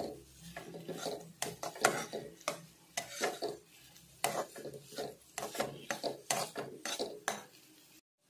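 A spatula stirring and scraping sliced bitter gourd and onions against a nonstick frying pan, in quick irregular strokes that stop abruptly near the end.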